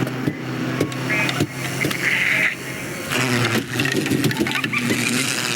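Busy cartoon bug-city street ambience from a film's sound-effects track: a dense mix of steady buzzing hum, many small clicks and clatters, and short chirps.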